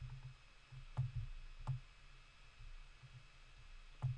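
Computer mouse clicking: single short, sharp clicks about a second in, again shortly after, and near the end, over a faint low hum.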